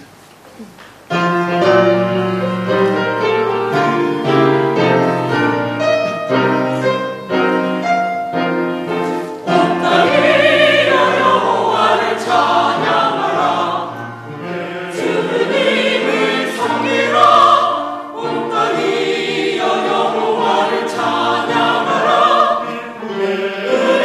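Church choir singing a Korean hymn of praise with piano accompaniment. A piano introduction starts about a second in, and the choir's voices come in at about ten seconds.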